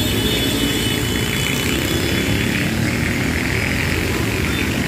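Diesel engine of a Sudiro Tunggal Jaya Ekonomi bus idling close by, a steady low rumble, with the hiss of motorcycles passing on the wet road that grows a little louder about halfway through.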